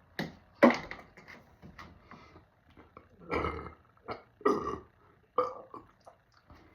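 A man belching over and over, about half a dozen loud burps in a row, the loudest about half a second in. The gas comes from chugging carbonated soda.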